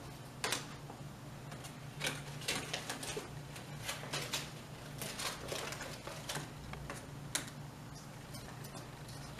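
Irregular small clicks, taps and rustles as paper cutout puppets on sticks are handled and slid across a tabletop puppet stage, over a faint steady low hum.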